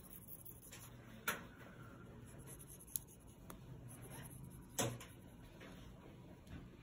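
Faint scratch of a dry-erase marker drawn along a line on a plastic-sleeved worksheet, with a few soft clicks and a louder knock about five seconds in.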